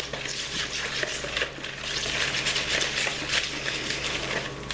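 A spoon stirring an oil-and-lemon-juice marinade with minced garlic and seasonings in a bowl: steady wet scraping with many small clicks.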